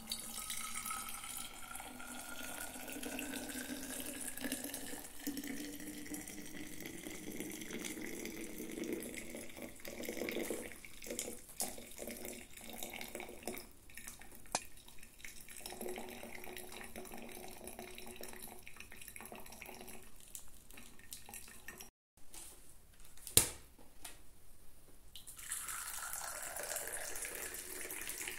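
Freshly brewed coffee trickling in a thin stream from a cloth coffee filter into a thermos flask, its pitch rising as the flask fills. A single sharp click about two-thirds of the way through, then coffee pouring from the thermos into a small cup near the end.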